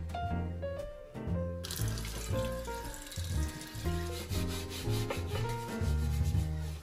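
Kitchen tap water running onto a nonstick grill pan in the sink, starting about a second and a half in, with a brush scrubbing the pan near the end. Background music with a steady bass line plays throughout.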